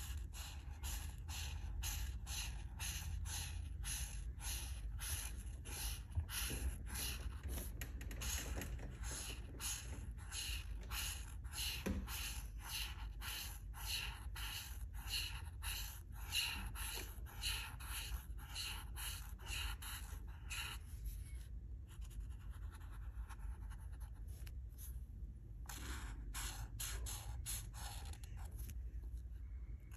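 Alcohol marker tip scratching across a colouring-book page in quick back-and-forth strokes, about two or three a second. The strokes stop for a few seconds about two-thirds of the way through, then a short run of strokes follows.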